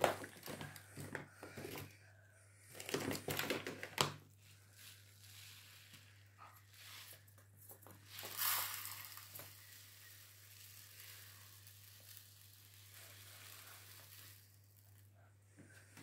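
Crinkling and rustling of a bag of cat litter, with rushes of litter granules poured into a container, the longest about eight seconds in.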